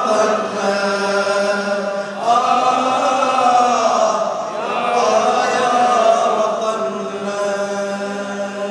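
A man chanting a sung Arabic elegy into a microphone over loudspeakers, in long held notes and slow melodic phrases.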